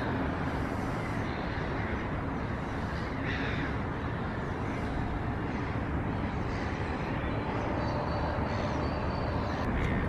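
Steady outdoor background noise, mostly a low rumble, with a short bird call about three seconds in and another near the end.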